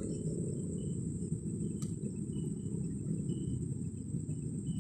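Crickets trilling in a continuous high-pitched drone, with short chirps repeating at a lower pitch, over a louder steady low rumble. A single faint click comes about two seconds in.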